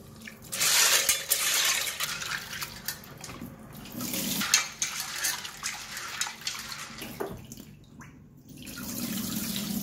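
Water from a kitchen tap running into a steel pot of dried chickpeas as they are rinsed, the water tipped out of the pot into a stainless steel sink. There is a short lull about eight seconds in.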